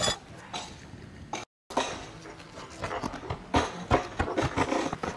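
Asphalt shingles being handled on the roof: scraping and a run of light knocks as pieces are moved and set in place. The sound drops out for a moment about a second and a half in.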